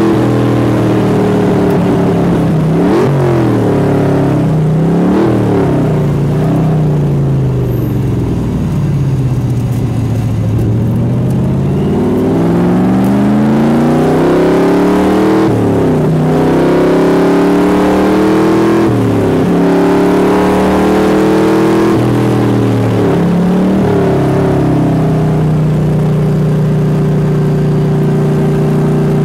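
Cheetah race car's V8 engine under hard acceleration, heard from on board next to its open air cleaner. The pitch climbs and drops sharply at each upshift, about five times. Around the middle it falls away for a few seconds as the car slows for a corner, then climbs through the gears again, and it holds fairly steady near the end.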